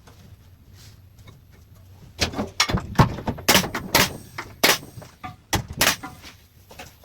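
A quiet stretch, then a run of about a dozen irregular sharp knocks and clatters from about two seconds in, stopping about a second before the end.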